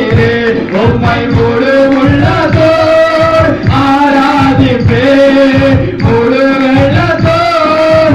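Group of men singing a Telugu Christian worship song, with two lead voices on microphones over a steady beat.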